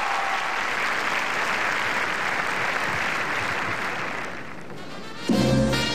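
Audience applauding, dying down after about four seconds. Then brass-led dance band music starts with a loud brass chord about five seconds in.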